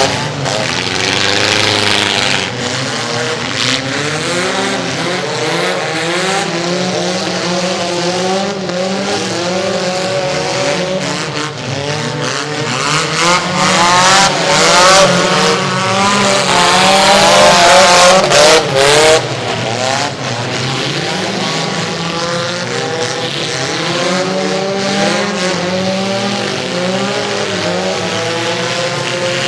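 Several small car engines racing together, their pitches overlapping and rising and falling as the cars accelerate and lift off. Loudest about halfway through, with engines revving up hard.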